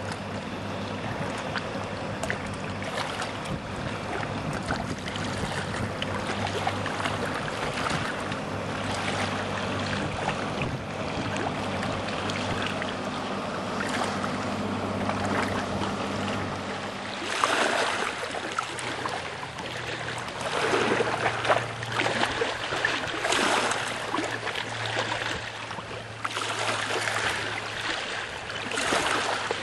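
Water rushing and splashing against a boat's hull, over a steady low hum. From about halfway, louder surges of splashing come every second or two.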